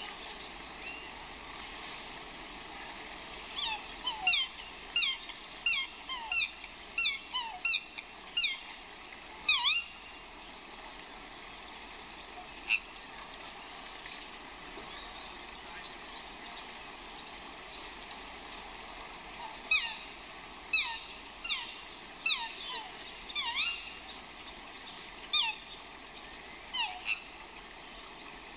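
Swans giving repeated high, downward-sliding squeals, about one every 0.7 seconds, in two bouts: one early and one about two-thirds through, with a lone squeal between. A steady hiss runs underneath.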